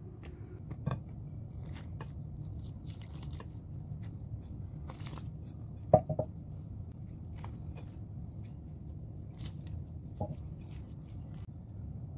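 A utensil scraping and clinking against a bowl as flour is stirred, with scattered short clicks and one sharp knock about six seconds in, over a steady low hum.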